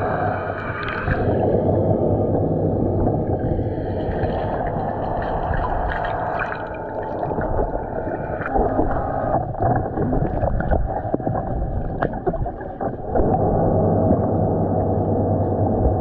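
Aiper Seagull Pro robotic pool cleaner running on the pool floor, heard from underwater: a steady, muffled motor hum with water churning through its pump, and a few clicks.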